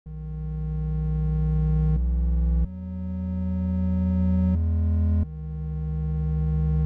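Synthesizer music: held electronic chords over a deep bass note, changing every second or two. Each chord swells louder as it holds.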